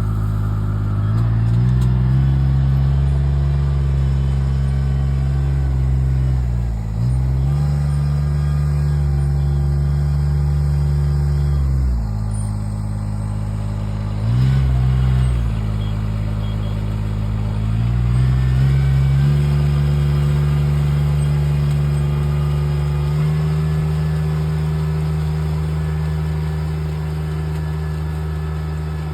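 Kubota NW6-F six-row walk-behind rice transplanter's engine running, its speed dipping and picking up again several times, then settling at a slightly higher steady speed in the last few seconds.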